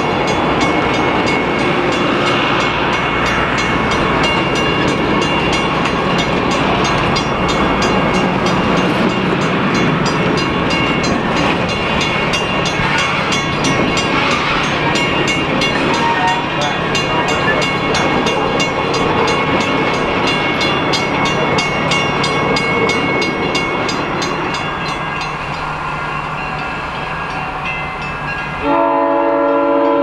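Passenger coaches rolling past close by, a steady noise of steel wheels on rail with many fine clicks. Near the end the sound changes suddenly to a locomotive's multi-chime air horn, the Nathan Airchime M5 on ex-Maine Central GP7 573.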